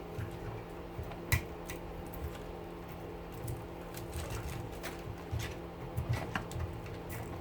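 Scattered light clicks and taps of hand tools on copper pieces as they are knocked and picked off an electric motor rotor, small bits dropping, over a steady low hum. The sharpest click comes about a second in.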